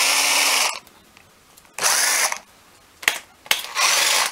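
Power tool spinning a socket on a long extension to run the bolts off a sterndrive lower unit's water-passage plate. It whirs in three short bursts, with a couple of metal clicks between the last two.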